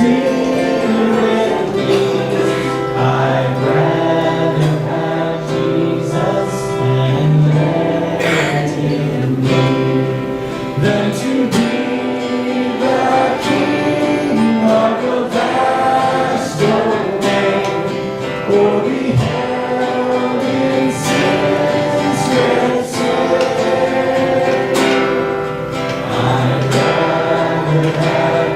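Worship music: voices singing together over guitar accompaniment.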